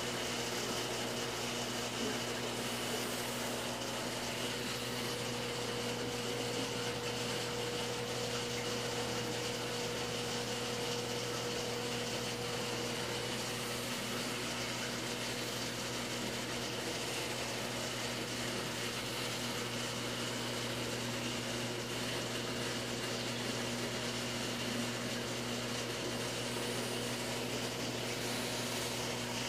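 Steady hum and water-circulation noise of a saltwater reef aquarium's pumps, with a few constant tones over an even hiss; one mid-pitched tone grows stronger for several seconds in the first half.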